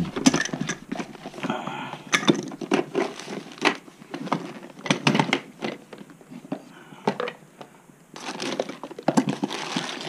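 Metal hand tools clinking and clattering in a soft-sided tool bag as a hand rummages through it, a string of irregular knocks and clicks.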